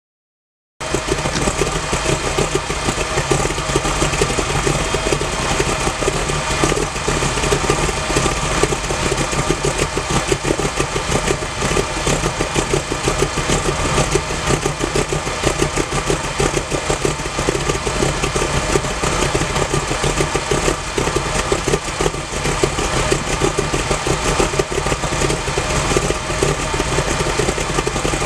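Hot rod's 350 cubic-inch V8 idling steadily through chromed headers and sidepipes, with the rumble of its CompCams Thumpr cam. The sound cuts in abruptly about a second in.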